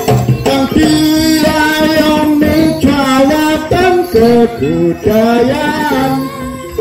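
Live jaranan (kuda lumping) music: a loud, held, wavering melody line over steady lower notes, with jingling bells.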